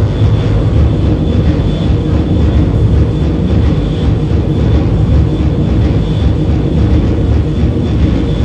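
Live electronic drone music over a PA: a loud, dense, unbroken low drone with noisy hiss above it and a thin steady high tone.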